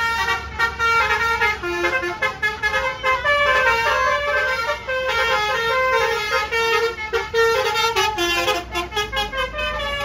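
Telolet bus horn, a set of musical air horns, playing a rapid tune of stepped notes with several tones sounding together, over the low sound of bus engines running.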